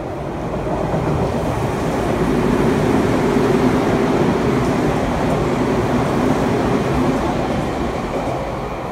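Electric commuter train running through the station without stopping, its wheels rumbling on the rails. The sound swells to a peak about three seconds in and fades toward the end.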